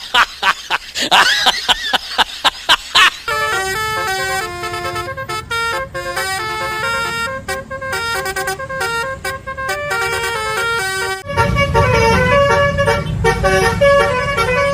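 Bus 'telolet' multi-tone horn of the Basuri type, opening with a run of short rapid blasts and then playing a tune of held notes stepping between pitches. About 11 seconds in, a low rumble joins under the horn.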